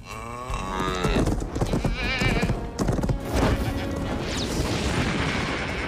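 Goats screaming, several long wavering cries over orchestral music.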